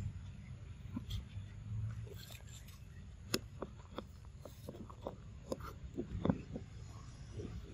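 Macaques moving about and handling one another at close range: a run of faint, short clicks and rustles, strongest in the second half, over a low steady rumble.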